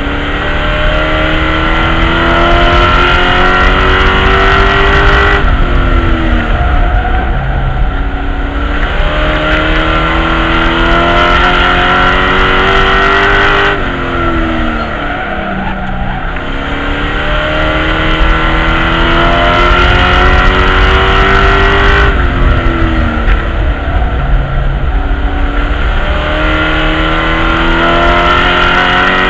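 Race truck engine at racing speed, heard from inside the cab. The engine pitch climbs along the straights and drops sharply each time the driver lifts for the turns, about every eight seconds.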